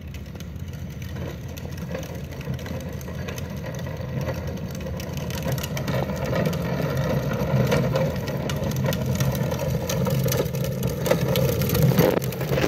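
Hard plastic wheels of a Little Tikes ride-on toy truck rumbling over pavement as it is pushed along. The rumble grows steadily louder as it approaches, with more clicks and rattles in the last couple of seconds.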